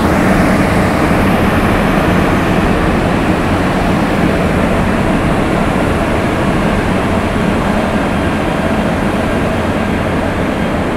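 Intercity train hauled by a Deutsche Bahn electric locomotive rolling slowly across a steel bridge: a steady rumble of wheels on track that eases slightly toward the end.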